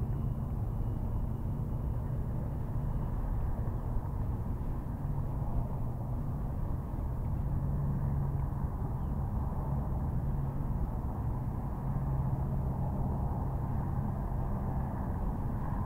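Steady low outdoor rumble of background ambience, with no separate events standing out.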